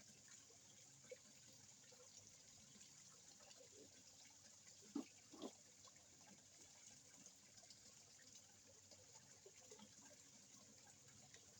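Faint water sounds from a small koi pond, with two small splashes about five seconds in.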